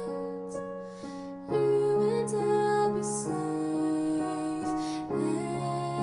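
Slow, soft piano music in a tender, lullaby-like style. It thins out about a second in and comes back fuller about half a second later.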